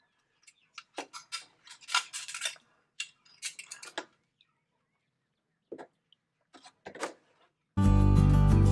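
Steel wire hook knocking against an aluminium scalding pot, with water splashing, as chickens are moved around in the scald water. Near the end, guitar music starts and is the loudest thing.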